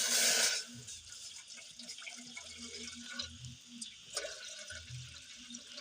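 Water poured out in a short splash just at the start, about half a second long, while making coffee. Then only faint small ticks and clinks.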